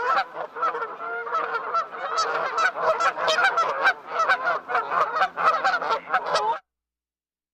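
A flock of birds calling over one another in a dense, continuous chorus, which cuts off abruptly near the end.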